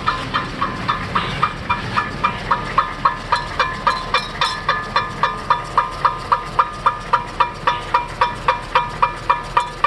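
Scraping from a 2005 Cadillac STS's front brake rotor, which is rubbing on a small rusted heat shield that has been bent against it as the wheel spins. Sharp squealing scrapes repeat evenly about four times a second.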